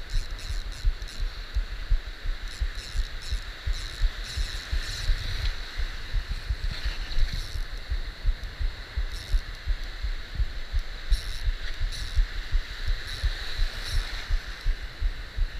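Surf washing over and around a camera held at the waterline: a low rumble of water with irregular thumps as the waves slosh against it, under a steady hiss of foam with scattered crackles.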